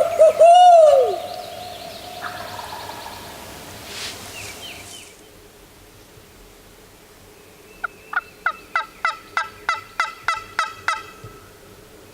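An owl-style hoot call ends with a long falling note in the first second. About eight seconds in comes a run of about a dozen evenly spaced turkey yelps, roughly four a second, lasting some three seconds.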